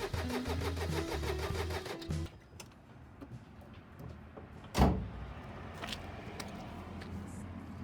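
Mercedes Sprinter 208 CDI four-cylinder diesel turning over on the starter without firing, a steady rhythmic cranking. The camshaft sensor is unplugged so the engine cannot start during an injector leak-off test. The cranking stops about two seconds in, then a single loud thump comes a few seconds later, followed by a few faint clicks.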